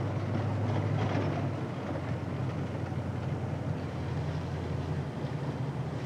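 Engine and road noise of a moving car heard from inside the cabin, a steady low drone.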